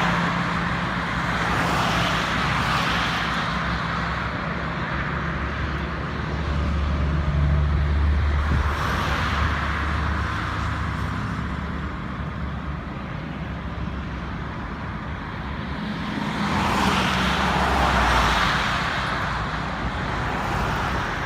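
Road traffic, with several vehicles passing by in turn over a low, steady engine hum.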